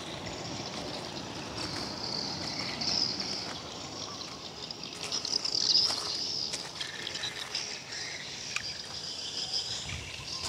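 Footsteps crunching over crushed-stone gravel, with scattered small clicks, over a steady high hiss outdoors.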